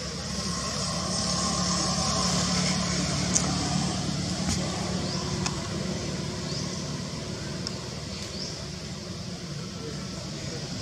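A motor vehicle's engine running steadily, its low hum swelling a couple of seconds in and then easing off as it passes, over a steady high hiss.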